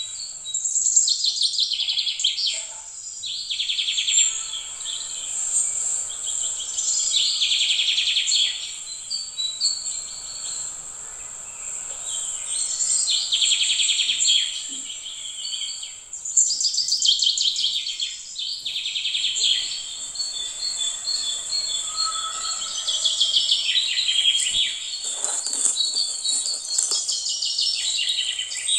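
Birds chirping and insects trilling in repeated bursts every couple of seconds, over a steady high-pitched insect hum.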